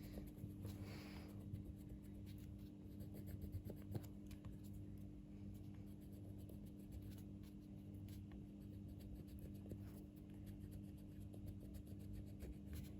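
Faint, irregular scratching of colouring strokes on drawing paper, over a low steady hum.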